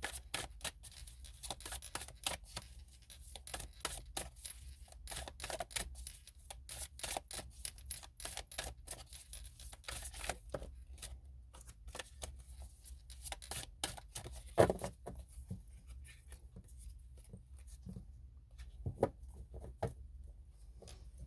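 Tarot cards being shuffled and handled: a dense run of quick papery clicks and rustles for about fourteen seconds, then sparser clicks with two louder taps.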